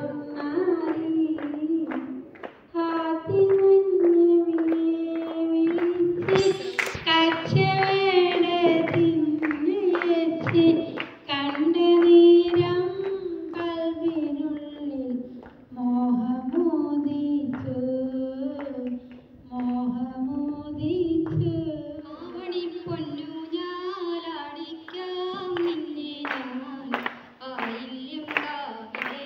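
A woman singing a slow, melodic song solo into a microphone, heard through a PA loudspeaker, with long held notes that glide between pitches.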